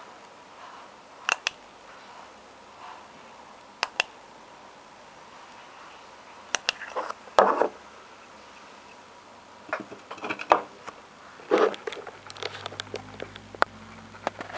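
DEVE elevator push-buttons clicking sharply, mostly in quick pairs, as they are pressed by hand. Between the clicks come rubbing and knocking as the metal button housings are handled.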